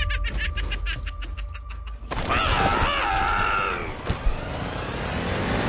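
Video game sound effects over a low rumble. For about two seconds there is a rapid run of shot-like clicks over a steady tone, then a wavering, voice-like cry.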